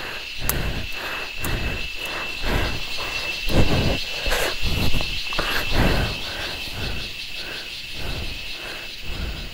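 Insects chirring steadily in the forest, a continuous high buzz with a fast pulse. Over it come irregular rustles and dull knocks about twice a second, loudest in the middle, from someone handling branches and mud close to the microphone.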